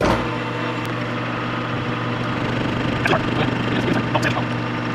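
Metal lathe switched on and running: its electric motor and spindle start abruptly and settle into a steady hum, with a few light clicks about three and four seconds in.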